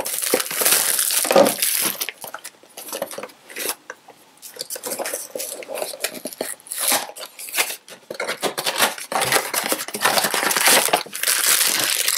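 Small cardboard box and the plastic bag inside it being opened by hand: irregular crinkling, rustling and tearing with scattered sharp clicks, easing off briefly about four and eight seconds in.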